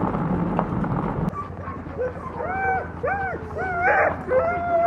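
Harnessed sled huskies yelping and whining in a quick series of short cries that rise and fall in pitch, starting about two seconds in. Before that, a steady low rumble of the cart rolling over the snowy track cuts off suddenly about a second in.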